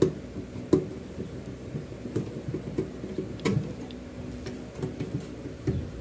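Irregular clicks and knocks as the screwed-on bottom cover of a rice cooker is loosened and pried off, with a few sharper knocks standing out among them.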